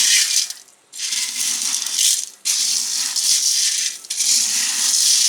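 Crisp fried mixture snack rattling and rustling as it is tossed in a vessel. It comes in runs of about a second and a half, with short breaks between them.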